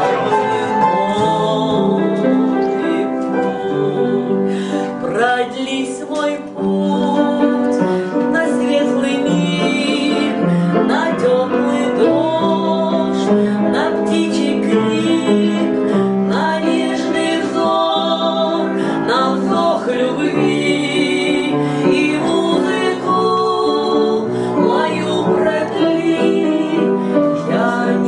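A woman singing a song with vibrato, accompanied by an upright piano playing chords.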